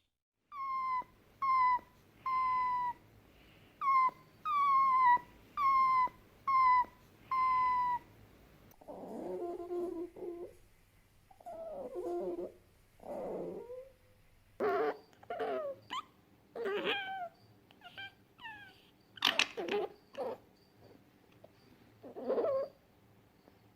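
Fennec fox calls. First comes a run of about nine short high-pitched whining calls, each dipping slightly in pitch. Then come several lower, rougher calls, and then a scattered mix of short squeaky calls of varying pitch.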